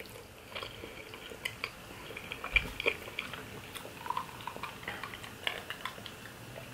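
Close-miked mouth sounds of chewing soft lasagna: quiet, wet clicks and smacks, with a few sharper clicks in the middle. Near the end, a sip from a glass of iced juice.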